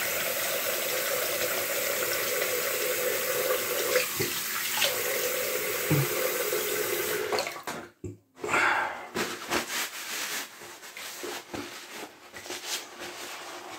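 Bathroom sink tap running while the face is rinsed after a shave, shut off about seven seconds in. After that come scattered light knocks and rustles.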